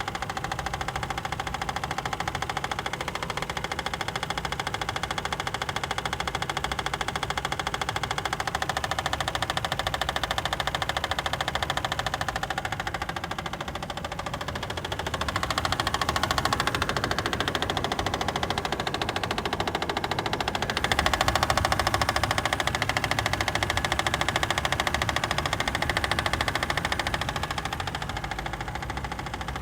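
Toyota 2JZ inline-six engine running with a knock, the fault the engine is being recorded for. It idles, and the revs are raised a few times, about 9, 15 and 21 seconds in, before settling back near the end.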